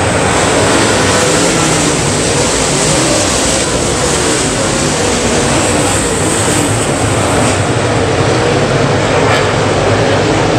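A pack of topless dirt late model race cars racing past, their V8 engines running loud and steady at full throttle.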